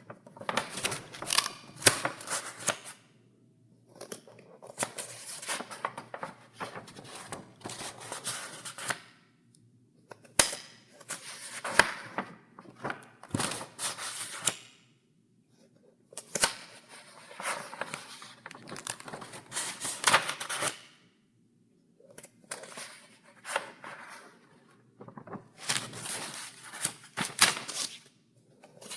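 Paper pages of a file being turned one after another: crisp rustling and flapping with sharp snaps, in about seven spells of a few seconds each with short pauses between.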